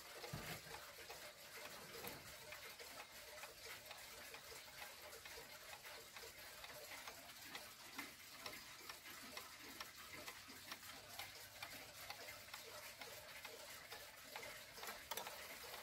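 A 1982 ZentRa pendulum wall clock with a Hermle movement ticking faintly and steadily: the escapement beating as the pendulum swings.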